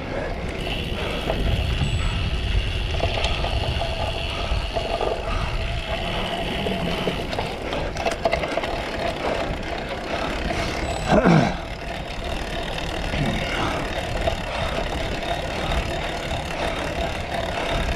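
Cyclocross bike ridden at race pace, heard from the rider's camera: a steady rumble of wind and riding noise on the microphone. About eleven seconds in comes one brief, loud sound that slides down in pitch.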